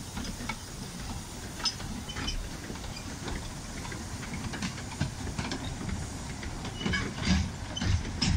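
Narrow-gauge steam train pulling away: a steady low rumble with scattered metallic clicks and clanks from the wheels and stock on the track, the clanks coming thicker and louder near the end.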